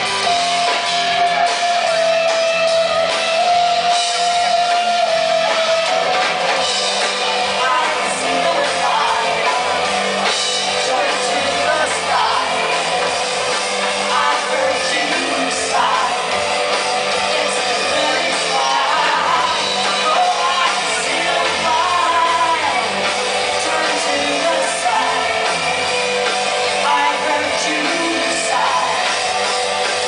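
Live rock band playing: two electric guitars and a drum kit, with a woman singing lead. A long held note stands out in the first few seconds.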